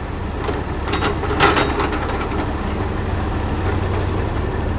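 Heavy diesel machinery running steadily at the log deck, with a few sharp knocks about a second in.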